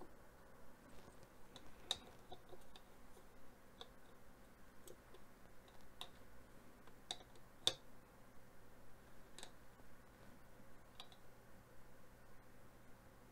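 Faint, irregular small metal clicks from tightening the half-inch nut on a BNC connector with a hand tool and handling the connector and its ground lug, with one sharper click a little past halfway.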